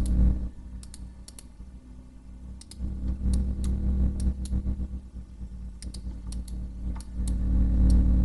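Computer mouse clicks: irregular, sharp, some single and some in quick pairs. Underneath them runs a low hum that swells and fades.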